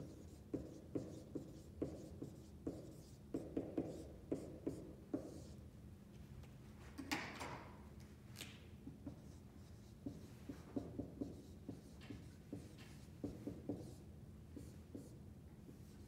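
Dry-erase marker writing words on a whiteboard: a run of quick taps and squeaking strokes, a longer squeak about seven seconds in, then a second run of strokes.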